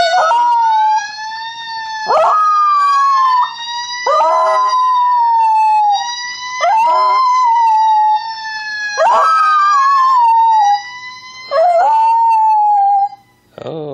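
A small white long-haired dog howling along with a wailing fire-truck siren. There are six long howls, each starting sharply, over the siren's slow, continuous rise and fall.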